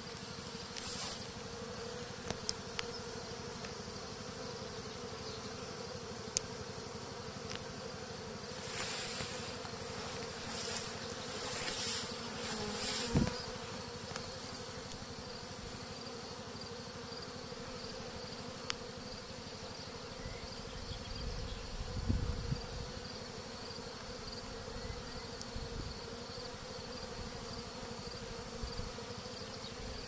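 A clustered honey bee swarm buzzing in a steady hum. Several louder hissing bursts come about a third of the way in, and there is a brief low thud about two-thirds of the way through.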